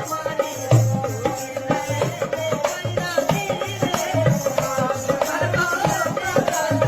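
Rajasthani folk song: a wavering sung melody over regular drum beats and a shaking rattle.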